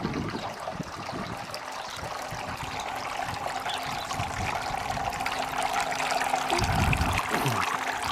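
Solar-powered garden water feature running, water trickling steadily over its little waterfall, with wind buffeting the microphone briefly about six and a half seconds in.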